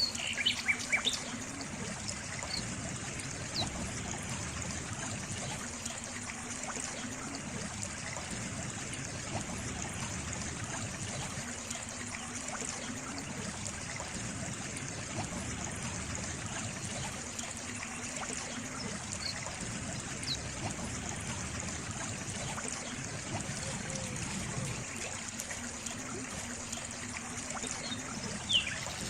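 Water trickling steadily. Birds chirp in short high notes about a second in and again near the end, with a few single chirps between.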